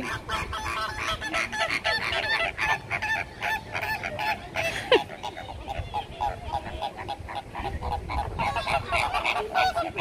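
A flock of flamingos calling, with many short honks overlapping without a break.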